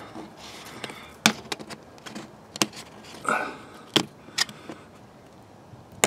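Handling noise from coaxial cable being pulled out through a wall grommet: several sharp clicks and taps, with a short scrape about three seconds in.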